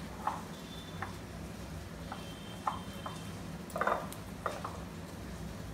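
Hand kneading grated cauliflower with cornflour and flour in a glass bowl: a series of short, soft squishes and light knocks against the bowl, the loudest about four seconds in.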